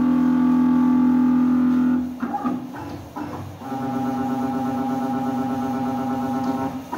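Background music: a long held chord that breaks off about two seconds in, then another held chord from about three and a half seconds in.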